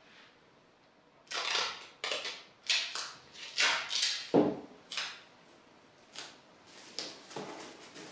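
Silver duct tape being pulled off the roll in short rasping rips, about one a second, as small pieces are torn off to stick down, with a dull knock about four seconds in. A few fainter rips near the end.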